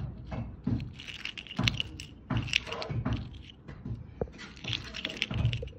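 A worn metal watch and its link bracelet clinking and scraping as it is turned over in the hand, with irregular small clicks, rattles and soft knocks of handling.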